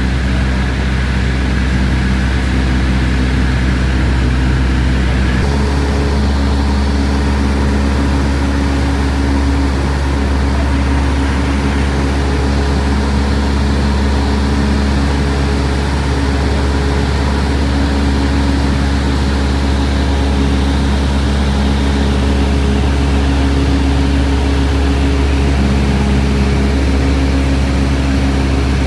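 Steady drone of a light aircraft's engine in flight, heard from inside the cabin, with several steady humming tones over a low rumble; the low rumble shifts abruptly about five seconds in.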